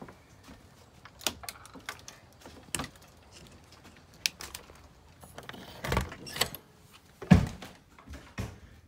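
Footsteps with scattered knocks and clicks, then a door being handled, with heavier thumps about six and seven seconds in, the loudest near seven seconds.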